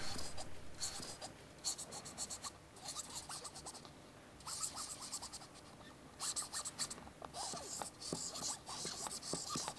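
A pen writing on a football's panels: faint, scratchy strokes in short bursts with pauses between them.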